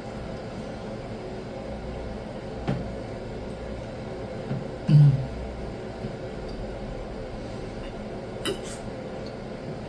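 Plastic soda bottle being handled and drunk from over a steady low room hum. There is a soft click about three seconds in and a short low thump about five seconds in, then a few faint clicks near the end as she swallows.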